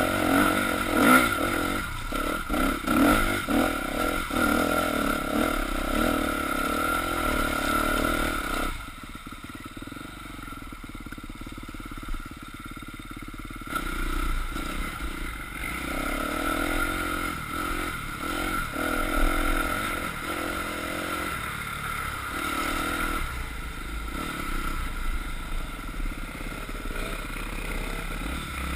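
Off-road dirt bike engine running as the bike is ridden over a rough, muddy trail, the throttle rising and falling, with knocks and clatter from the bike over bumps. About nine seconds in the sound drops to a much quieter stretch for about five seconds before the engine picks up again.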